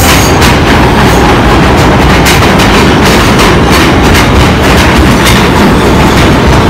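New York City subway train passing a station platform at speed: a loud, continuous rumble with a rapid, uneven clatter of wheels over the rails.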